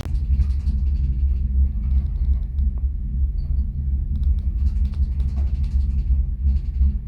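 Steady low rumble inside a cable car gondola riding up the mountain.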